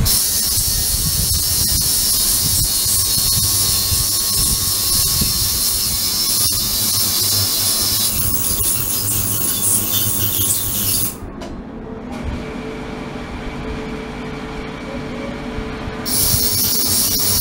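Ultrasonic cleaning tank running, a loud steady hiss of cavitation noise with a low rumble underneath. About two thirds of the way through, the high hiss cuts out and the sound drops to a quieter, duller rumble for about five seconds, then the hiss comes back.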